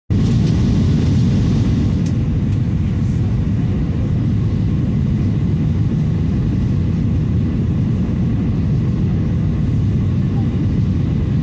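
Cabin noise inside a Boeing 737 MAX on landing approach: a steady low rumble of the engines and air rushing past the fuselage, with faint steady tones above it.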